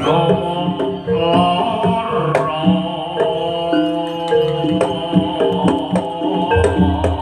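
Javanese jaranan music: kendang hand drums playing a busy rhythm under a melody of held notes.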